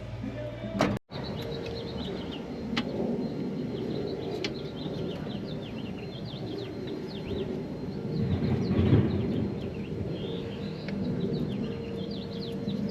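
Outdoor ambience full of small birds chirping in quick, rapid calls, over a steady low background hum, with a couple of sharp clicks.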